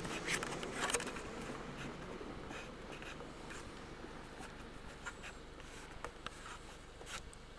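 Handling noise from a hand-held camera: fingers rubbing and scratching on the body with a few scattered clicks over faint outdoor background.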